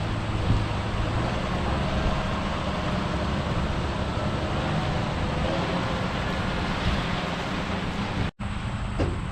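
Heavy farm machinery running steadily: a low diesel engine rumble under a broad mechanical and airflow noise. The sound cuts out for an instant about eight seconds in, then carries on.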